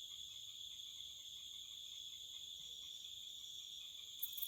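Crickets calling in a steady high-pitched trill, with fainter pulsing insect calls beneath. Near the end a louder high hiss comes in.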